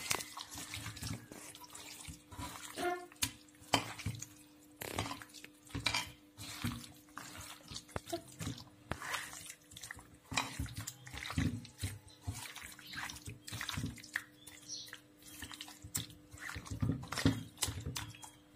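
A bare hand squishing and kneading chicken pieces through a thick wet spice marinade in a steel kadhai: irregular wet squelches, several a second. A faint steady hum runs underneath.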